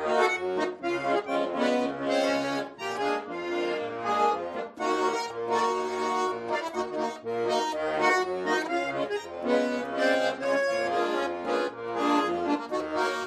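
Instrumental break of a pop song, the melody carried by an accordion over a steady bass beat.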